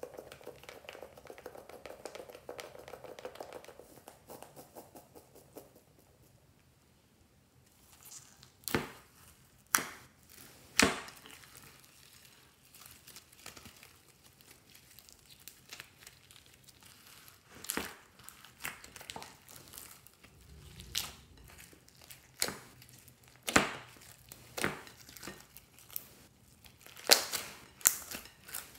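Orange slime full of foam beads being stretched and kneaded by hand: a crackling, crinkling texture for the first few seconds, then scattered sharp clicks and pops that grow more frequent near the end.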